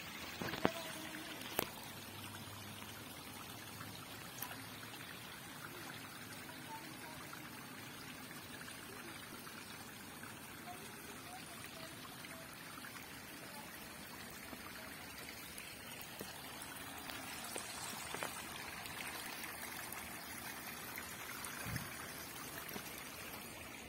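Small stream of water trickling and running over rock, a steady rush that grows a little louder after the halfway point. A couple of sharp clicks sound in the first two seconds.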